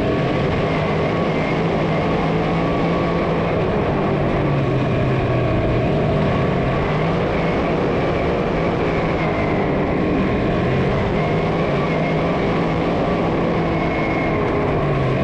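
Pack of big-block dirt modified race cars running at speed, a steady, dense engine drone with no single car standing out.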